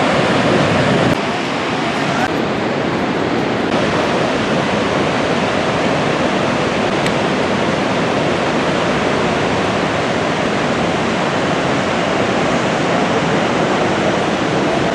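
Niagara's Horseshoe Falls: a steady, loud rush of heavy falling water pounding into the river below. It dips slightly about a second in.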